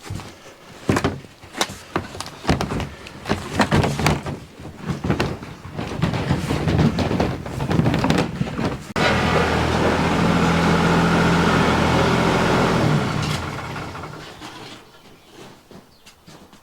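Wooden pallets being handled and moved: a run of knocks and clatters, then a loud steady noise for about four seconds from about nine seconds in, fading out near the end.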